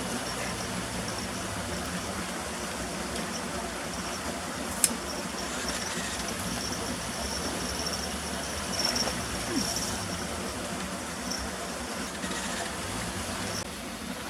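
Steady outdoor background noise with a low hum underneath and a faint high intermittent tone, broken by one sharp click about five seconds in.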